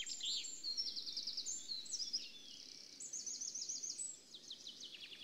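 Small songbirds singing: rapid high trills and chirps, several overlapping.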